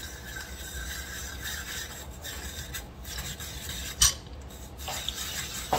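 Hand-cranked rotary drum grater shredding a cucumber, a steady rasping as the turning drum scrapes the cucumber into strands. A sharp knock sounds about four seconds in and again near the end.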